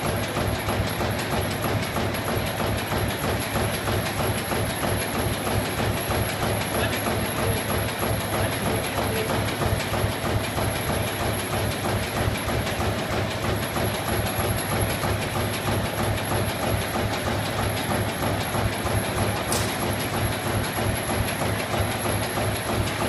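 Paper blank punching machine running, a fast, steady mechanical clatter of its repeated punching strokes as it punches ice cream cone sleeve blanks from a paper web.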